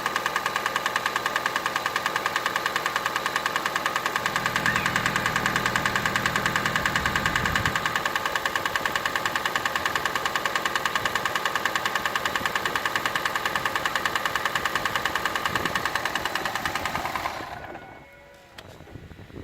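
Toyota Prius XW20's 1.5-litre 1NZ-FXE petrol engine running with a fast, even knock from the top of the engine, several strikes a second. It sounds like a connecting-rod knock, but the owner places it in the head and suspects the camshaft, or else the timing chain or valve shims. About seventeen seconds in the engine shuts off.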